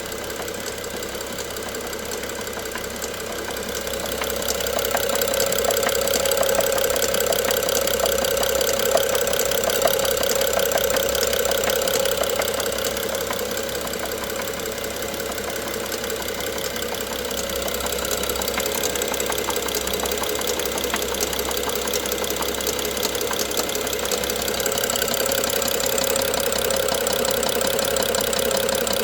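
BMW N55 turbocharged straight-six engine running with a rapid, repetitive knock, which the owner calls engine knock. It grows louder for a stretch from about four seconds in, and again near the end.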